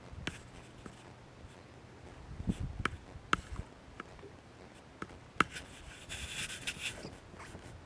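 Handling noise from fishing gear: scattered sharp clicks and knocks with rubbing, and a short rasping rustle about six seconds in.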